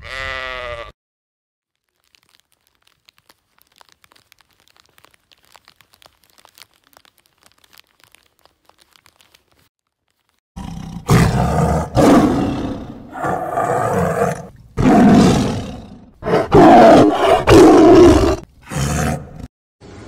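A sheep's bleat ends in the first second, then faint ticking, then from about halfway in a large animal roars loudly and roughly about seven times in a row.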